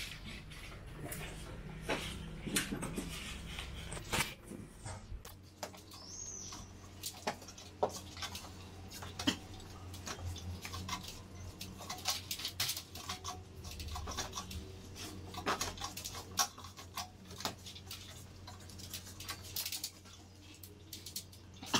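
Scattered small clicks, taps and rustles of hands working the cables and wrapped pipe bundle under a wall-mounted split air-conditioner indoor unit, over a low steady hum.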